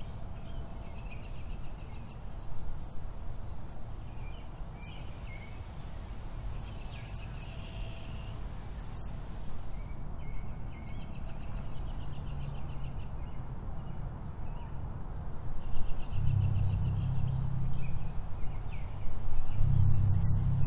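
Outdoor ambience: small birds chirping and trilling again and again over a steady low rumble. The low hum grows louder twice near the end.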